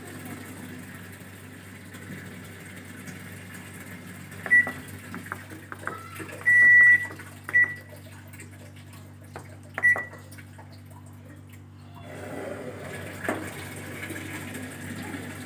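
Zanussi top-loading washing machine's control panel beeping as its buttons are pressed: three short beeps and one longer beep, with button clicks, over a steady low hum. About twelve seconds in, a steady rushing noise sets in.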